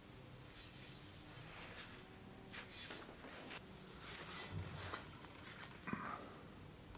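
Faint rustling and handling noises as a large forged steel blade is turned in gloved hands, with one sharp click about six seconds in, over a faint steady low hum.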